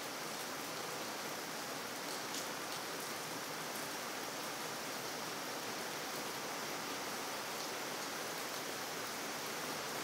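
Steady rain falling on wet pavement: a continuous even hiss, with a few single drops standing out now and then.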